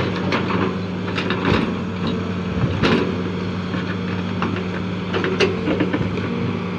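Hitachi crawler excavator's diesel engine running at a steady pitch, with scattered knocks and clatters from the machine working.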